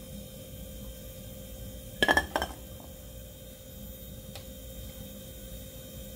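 Kitchenware clinking: a quick cluster of ringing clinks about two seconds in, then a few faint taps, over a faint steady hum.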